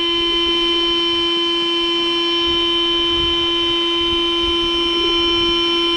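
Ryobi cordless electric inflator running, pumping air into an inflatable boat through its valve, with a steady, unchanging hum and whine. It is running on a battery that is nearly flat.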